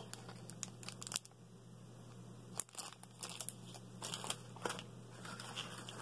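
Clear plastic packaging crinkling and rustling as it is handled, in faint scattered rustles with a few sharper clicks.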